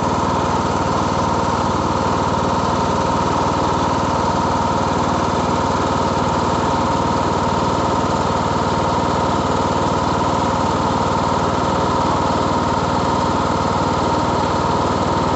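Riding lawn mower engine running steadily.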